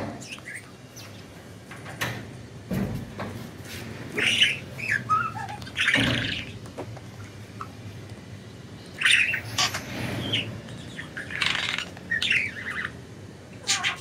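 Budgerigars chirping in short, scattered bursts a second or two apart.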